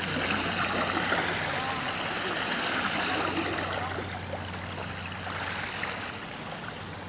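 Small waves from a passing ferry's wake washing in on a shore, a steady rush of water that eases off after about four seconds.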